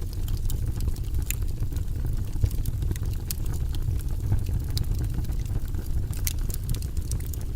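Fire burning in a fireplace: a steady low rumble with scattered small crackles and pops throughout.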